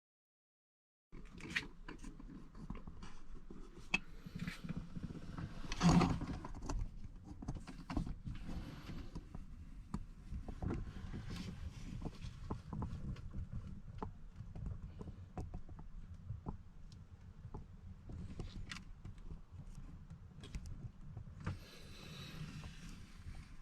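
Handling noise: scattered clicks and knocks over a steady low rumble, with a louder knock about six seconds in.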